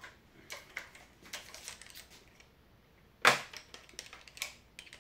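Scattered light clicks and knocks of tools and parts being handled, with one sharp, much louder knock a little past three seconds in.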